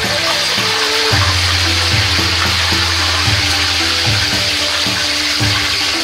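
Spring rolls deep-frying in a wok of hot oil, a steady bubbling sizzle, with background music playing a melody and bass line underneath.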